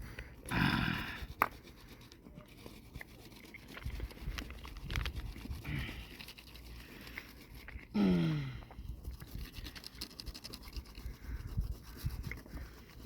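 Metal blades scraped back and forth on a sharpening stone: a run of irregular, rasping strokes. Two short voice sounds falling in pitch cut in, about a second in and about eight seconds in.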